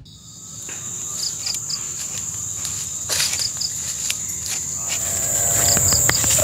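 Insects in a forest: a steady high-pitched whine with short chirps in groups of three about every two seconds, growing slowly louder.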